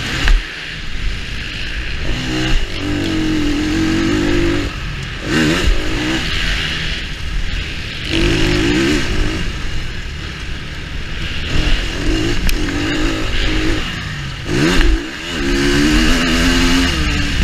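2019 KTM 350 EXC-F's single-cylinder four-stroke engine being ridden hard, its pitch climbing and falling again and again as the throttle is worked. The throttle is shut sharply just after the start and again about fifteen seconds in. A steady hiss runs underneath.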